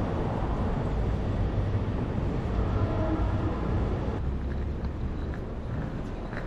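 Wind rumbling on the microphone of a moving bicycle, over city traffic noise. The upper hiss thins out about four seconds in.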